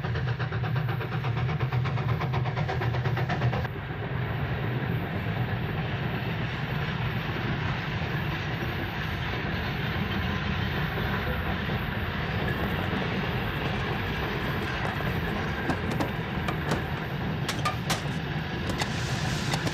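Steam locomotive and train running on rails: a steady rumble with a fast, even rhythm of chuffing and wheel clatter for the first few seconds, then a continuous rushing rumble. A few sharp clicks near the end.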